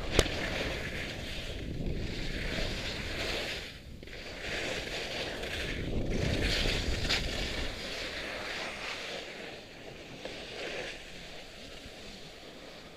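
Skis scraping and carving over packed early-season snow, the hiss swelling and easing with the turns, with wind rushing over the helmet camera's microphone. A sharp click comes just after the start, and the sound fades in the last few seconds.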